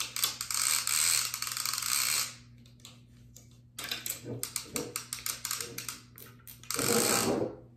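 Line-counter fishing reel clicking rapidly as it is worked and cranked by hand, in two runs of clicks with a pause of about a second and a half between them, then a brief louder rasp near the end.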